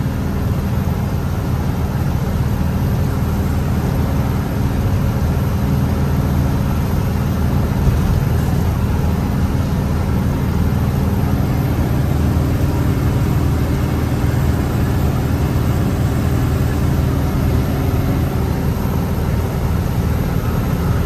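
Loaded goods truck's diesel engine running steadily on the road at an even pace, a low drone with road noise on top.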